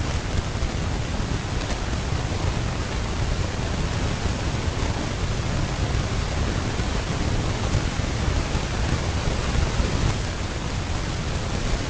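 Steady rushing noise with a strong low rumble, unchanging throughout; no separate sounds, such as elephant calls or splashing, stand out above it.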